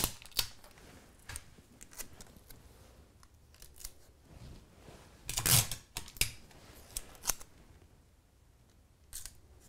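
Metal TV wall bracket being handled and held against a block wall while its holes are marked: scattered small clicks and taps, with one louder scrape about halfway through.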